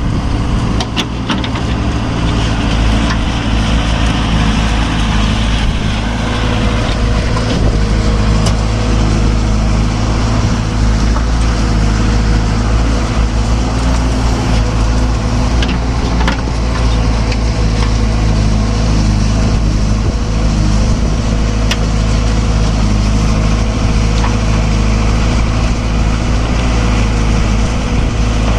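Heavy diesel engine running steadily at a constant speed, with a few short sharp knocks here and there.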